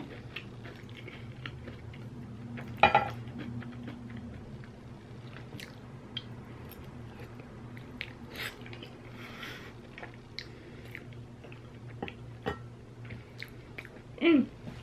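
Close-up chewing of garlic toast and creamy fettuccine, with a fork clinking and scraping in an enamel pot now and then over a steady low hum. A short hummed voice sound comes near the end.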